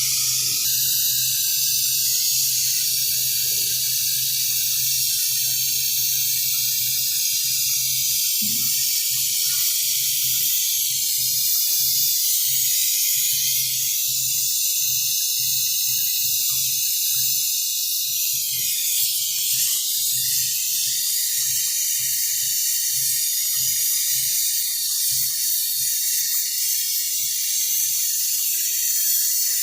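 Steady, loud hiss of gas under pressure, with a low hum underneath.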